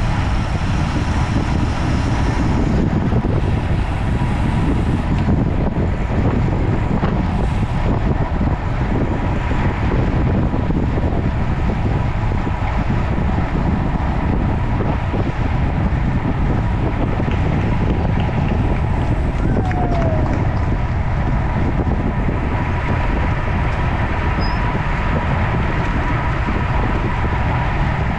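Steady wind rushing over the microphone of a camera riding on a road bike at race speed, with road and tyre noise underneath and a faint steady tone throughout.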